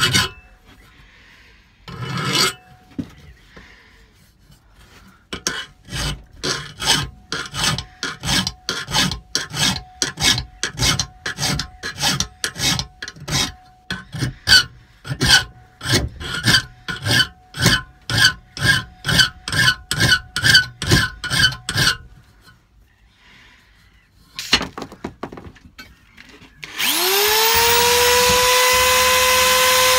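A hand file rasping across a metal tube in regular strokes, about two a second, the tube ringing with each stroke. Near the end an electric grinder starts up, its pitch rising, then runs steadily.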